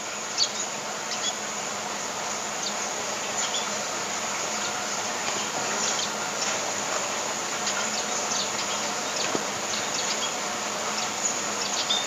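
Steady outdoor hum of insects, with short, high bird chirps scattered through it.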